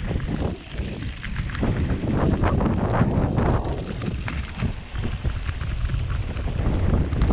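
Mountain bike riding down a dirt trail: wind rushing over the microphone, with tyre noise and frequent short knocks and rattles as the bike goes over bumps.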